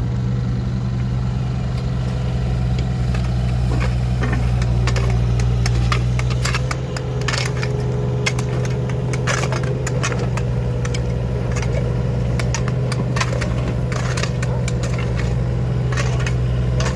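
Engine of construction machinery running steadily with a deep hum, with scattered knocks and clanks of work going on.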